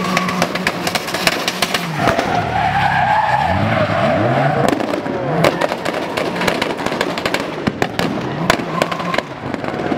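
Drift car's engine revving up and down as the car slides, with its tyres squealing from about two seconds in and a crackle of sharp pops throughout.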